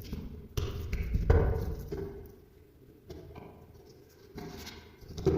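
Several sharp knocks and thuds of hands-on food preparation, three in the first two seconds and more near the end, with quieter handling sounds between.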